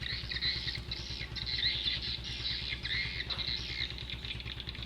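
Small birds chirping and twittering over and over, with a low steady hum underneath.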